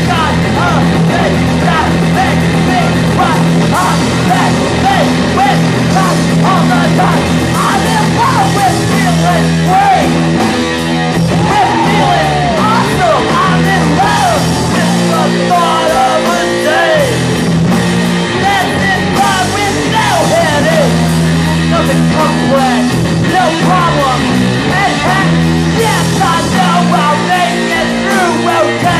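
A punk rock band playing live: electric guitar, bass guitar and drums, with a singer singing into a microphone over them.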